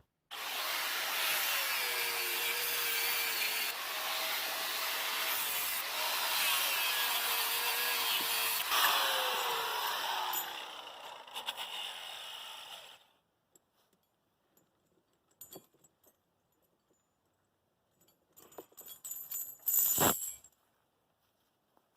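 A power tool running for about ten seconds, then winding down with a falling pitch. Near the end come a few light metallic clinks and one sharper clank.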